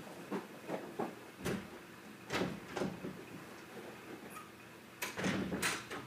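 Footsteps and small knocks of someone moving off, then a louder clatter of a door being shut about five seconds in.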